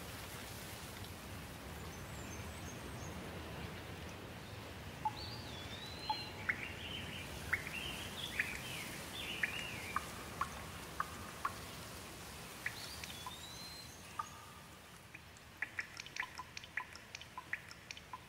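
Steady rain with birds chirping and calling over it. After about fifteen seconds the rain thins and water drips in quick, irregular ticks.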